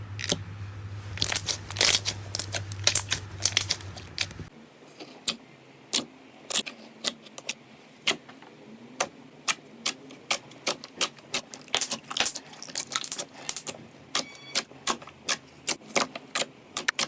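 Slime being squeezed and poked, giving crisp pops and crackles. Dense crackling for about four seconds over a low hum, then, after an abrupt change, separate sharp pops about two a second.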